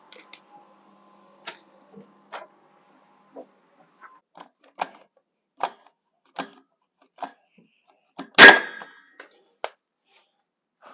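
A Hilti DX 5 powder-actuated nail gun fires once with a single sharp bang, about eight seconds in. The cartridge drives a nail through a metal strip into a thick steel post. Light, scattered clicks come before the shot.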